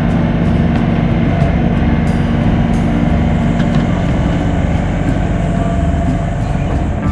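Compact track loader's diesel engine running steadily at close range as the machine manoeuvres.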